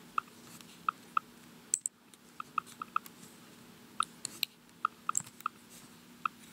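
Uneven keystrokes and clicks on a MacBook Pro keyboard and trackpad, picked up close by the laptop's built-in microphone, with a short pause about three and a half seconds in. A faint steady low hum sits beneath them.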